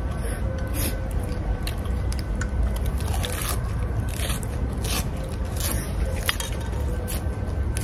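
People eating grilled shrimp: chewing, crackling shells and small clicks and scrapes of cutlery on dishes, many short sharp sounds over a steady low rumble.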